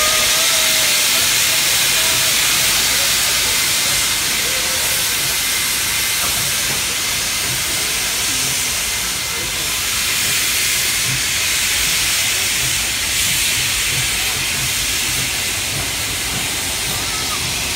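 A steady, loud hiss of steam from two steam locomotives hauling a passenger train out, with the low rumble and knocking of the wooden carriages rolling past on the rails.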